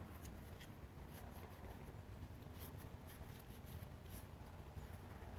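Faint rubbing and scuffing of a shop towel wiping alcohol over the textured grip of a Smith & Wesson Bodyguard pistol, in short irregular strokes, cleaning grease out of the grooves.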